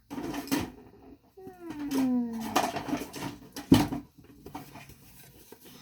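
Small plastic toy pieces clicking and clattering as they are handled and rummaged through, with a falling, pitched, voice-like sound lasting about a second, starting about a second and a half in.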